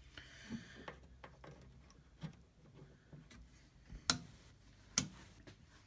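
Scattered small clicks and knocks from handling a valve tester, with two sharp, louder clicks about four and five seconds in.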